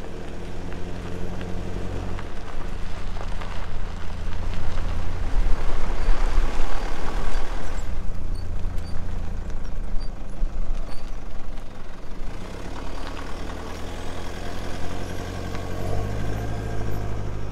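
Motor vehicle engine running, a steady low drone whose note shifts about two seconds in and again near the end.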